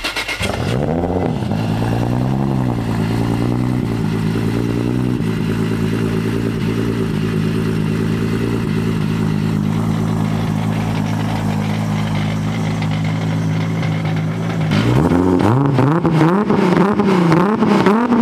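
A 1998 Toyota Supra Turbo's built 2JZ-GTE inline-six fires up and swings up and down through a couple of revs. It then settles into a steady idle. Near the end it is revved in several quick blips.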